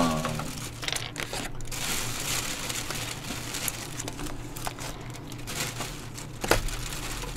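Thin clear plastic delivery bag crinkling and rustling as hands unpack food from it right at the microphone, with one sharper crackle near the end.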